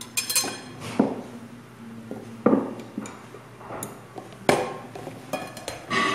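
A glass cup and metal ice tongs being handled and set down on a table: several separate knocks and clinks of glass and metal.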